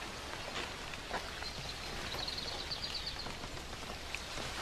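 Steady hiss of outdoor background ambience from a film soundtrack, with a few faint scattered clicks and a short high twittering about two seconds in.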